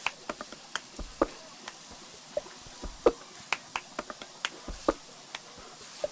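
Lawn sprinkler spraying water: a steady faint hiss with scattered sharp ticks and taps at uneven intervals.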